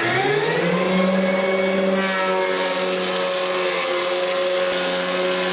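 Electric drive of an Altai-004-SP timber-beam profiling machine starting and spinning up to speed within the first second, then running with a steady whine. A rushing noise joins about two seconds in.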